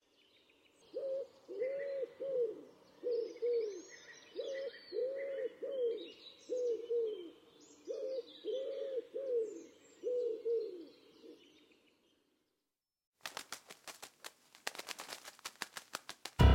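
Common wood pigeon cooing: three phrases of five soft notes each, with small birds chirping faintly behind. After a short silence, a run of rapid, irregular clicks near the end.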